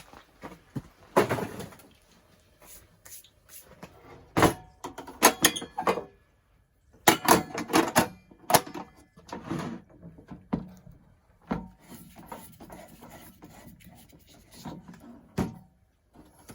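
Metal cookware being handled: sharp clanks and knocks of a lid and pots being set down and moved, in irregular clusters, some with a short metallic ring.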